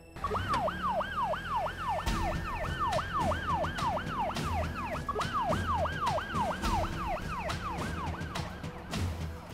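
Emergency-vehicle siren in a fast yelp, repeating quick sweeps in pitch about two and a half times a second over a low rumble. It starts suddenly just after the beginning and dies away about a second before the end.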